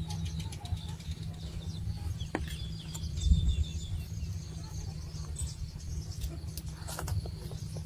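Small birds chirping over a steady low rumble, with a dull thump about three seconds in and a few sharp clicks near the end.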